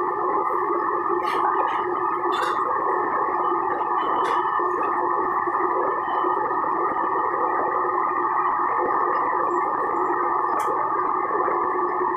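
Commercial Chinese wok range running: a steady burner roar mixed with water running from the range's tap, with a few light metal clinks.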